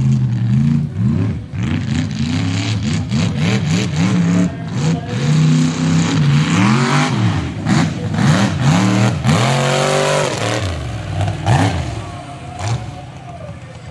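A tube-chassis mud bog truck's engine revving hard, its pitch climbing and falling over and over as it churns through a mud pit. It settles lower and quieter near the end.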